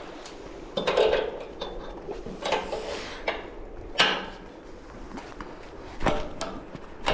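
Magnet-fishing gear being handled against metal: a handful of separate clanks and knocks, the sharpest about four seconds in.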